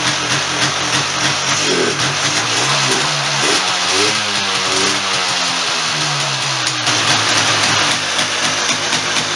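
1996 Polaris Sportsman 400 two-stroke engine running after a top-end rebuild, its throttle blipped about three seconds in so the pitch rises, then slowly falls back to idle.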